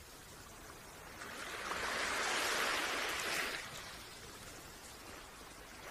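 Water washing against the jetty, a rushing hiss that swells about a second and a half in and fades again by about four seconds.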